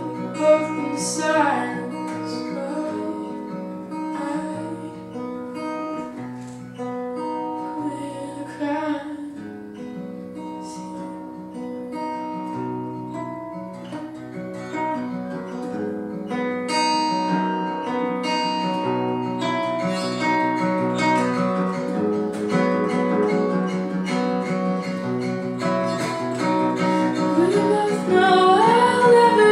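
Steel-string acoustic guitar fingerpicked in a steady, flowing pattern, with a woman's singing voice briefly about a second in and again near the end.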